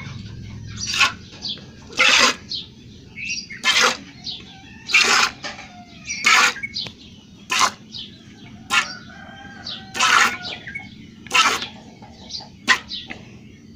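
A cow being milked by hand: squirts of milk hissing into a pail that already holds milk, in a steady rhythm of about one strong squirt every second and a quarter. Birds chirp faintly between the squirts.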